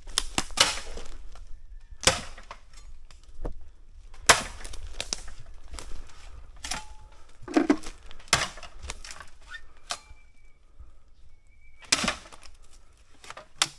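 Footsteps crunching through dry bamboo leaf litter and fallen bamboo stalks, with irregular sharp cracks and snaps of dry stems underfoot.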